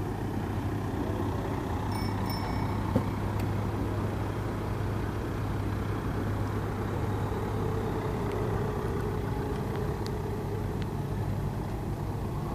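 Volkswagen ambulance van driving slowly past, its engine running steadily with no siren sounding. Two brief high beeps about two seconds in.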